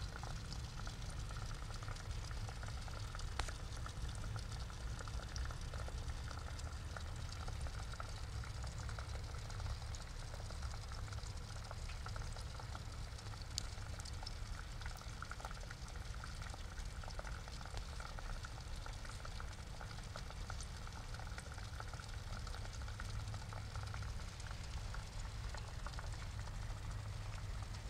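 Water running into a small pond from an inlet pipe, a steady bubbling babble with many small crackles and splashes over a low rumble.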